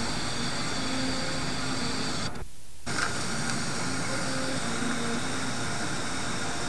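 Steady hissing noise with faint short low notes underneath, dropping out completely for about half a second about two and a half seconds in.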